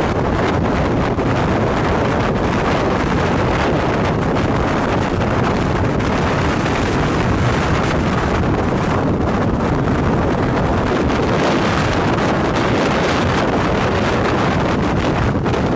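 Strong wind blowing hard across the microphone, a steady loud rush and rumble.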